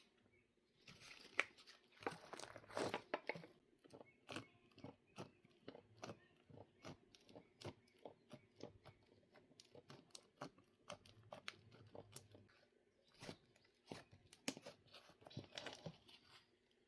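Butter slime being pressed and stretched by hand, giving soft sticky clicks and crackles, thickest about two to three seconds in and again near the end.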